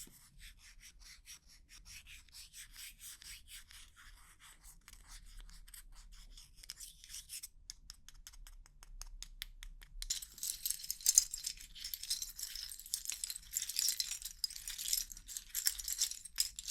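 Loose plastic keyboard keycaps rustling and clattering. First there is a run of rhythmic rubbing strokes, then lighter scattered clicks, and from about ten seconds in a louder, denser clatter.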